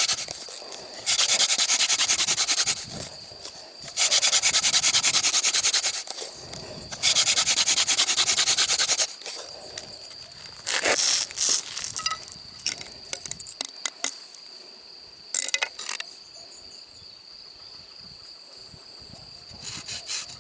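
Wooden hand-drill spindle spun between the palms against a hearth board: three bouts of fast back-and-forth rubbing, each about two seconds long, the last ending about nine seconds in. After that come a few rustles and a steady high insect trill.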